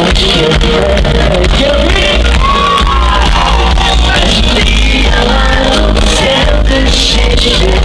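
Live pop band playing loud, with a male lead singer singing into a microphone over electric guitars, bass and drums.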